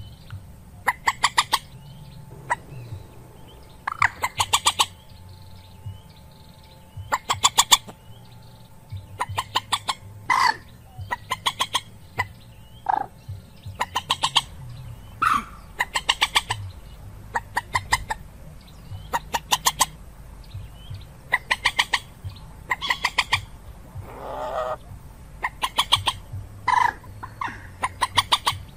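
Common moorhen calls from a trapping lure recording: rapid stuttering series of short clucking notes, repeated every one to two seconds, with a few single sharper calls between them. A faint low hum lies underneath.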